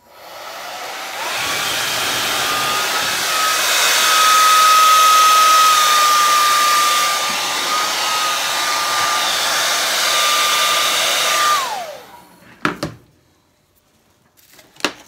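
Hair dryer switched on, its whine rising as the motor spins up, then blowing steadily for about ten seconds before it is switched off and the whine falls away as it winds down. Two short knocks follow near the end.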